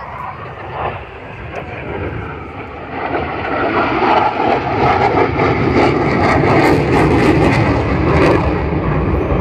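Fighter jet flying past, its jet engine noise a rushing sound that grows clearly louder about three seconds in and stays loud, with a crackle in it.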